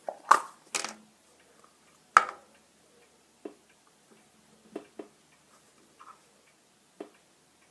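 Irregular light clicks and taps of small things being handled on a tabletop during Play-Doh modelling. Three sharper clicks come in the first couple of seconds, then fainter taps about once a second.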